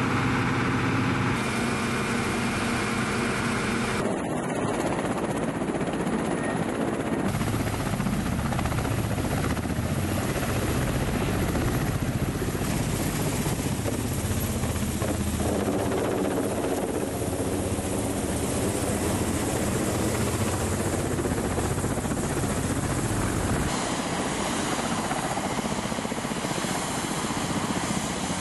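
Military attack helicopters running: steady turbine and rotor noise. The sound changes character abruptly several times as different helicopter shots follow one another.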